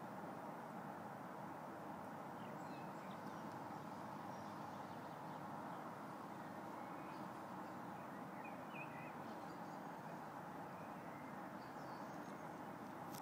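Steady outdoor background noise, with faint, scattered bird chirps at a few points.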